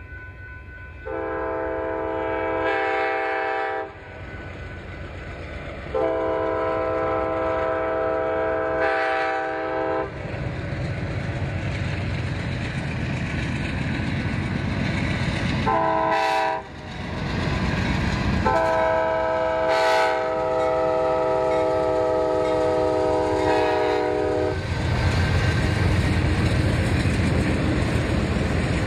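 Diesel locomotive's multi-note air horn sounding the grade-crossing signal: long, long, short, long. Under it is the low rumble of the train's engine and wheels, which grows louder near the end as the train draws past.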